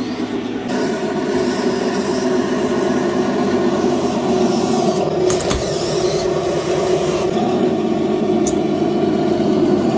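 Small electric motors and gearboxes of radio-controlled model vehicles running steadily, a whine of several steady tones over a rough grinding noise, growing louder about a second in.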